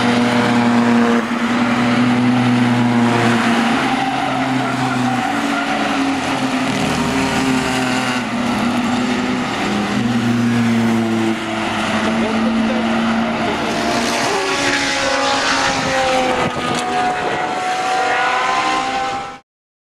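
Race car engines running hard at high revs, their notes holding and then shifting in pitch, with tyres squealing as cars slide and drift through a corner. The sound cuts off abruptly near the end.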